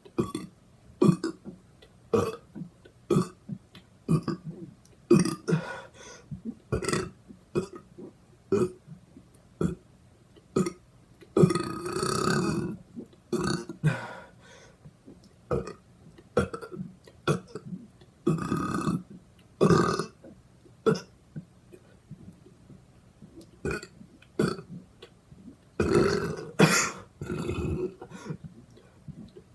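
A person burping over and over: a quick series of short burps, about one or two a second, with a few longer, drawn-out burps around the middle and near the end.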